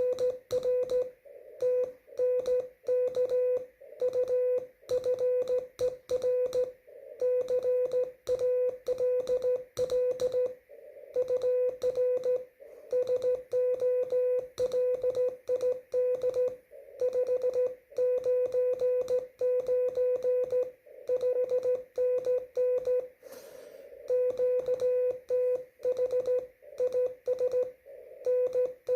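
Morse code (CW) from an amateur radio transceiver: one steady tone of about 500 Hz keyed on and off in dots and dashes at slow speed, with band-noise hiss filling the longer gaps between characters.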